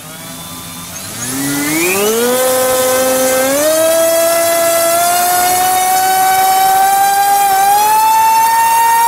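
T-Motor F60 2450kv brushless motor on a thrust stand, spinning a 5x4.5 bullnose propeller up from standstill under the throttle of a Little Bee 30A ESC. It gives a loud electric whine with propeller rush that rises in pitch in several steps as the throttle is raised, with the thrust climbing to about 900 g.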